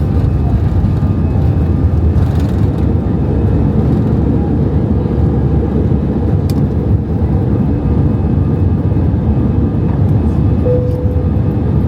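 Steady low rumble of an Airbus A320-200's engines and airflow heard inside the passenger cabin, with a faint click midway and a brief faint tone near the end.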